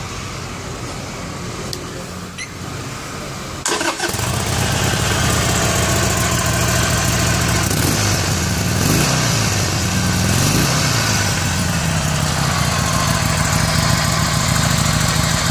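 A 2018 Harley-Davidson Sportster Iron 883's 883 cc V-twin starting up almost four seconds in, then idling steadily, with a few brief revs in the middle.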